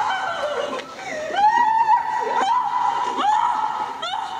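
High-pitched voice squealing in a string of about four rising swoops, each held briefly at the top.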